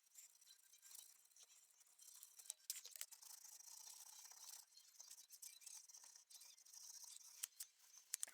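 Faint scratchy rubbing of fine 400-grit wet/dry sandpaper, wrapped around a flat file, stroked along the steel cutting edge of diagonal cutting pliers to finish it. The rubbing comes in stretches of a second or two, with a few light clicks.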